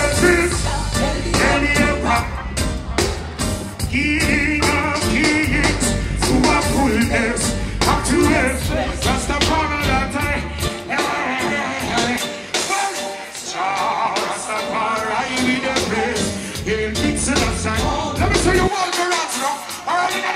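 Live reggae band playing behind a male lead singer, with heavy bass and drums. The bass drops out for a few seconds about halfway through and again near the end, leaving the voice and upper instruments.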